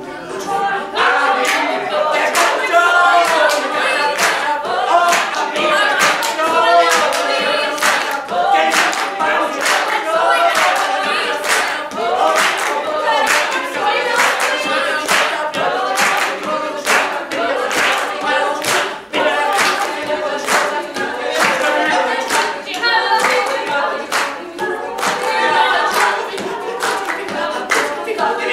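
A group of voices singing a cappella in layered parts, an improvised vocal soundscape, with hand claps keeping a steady beat throughout.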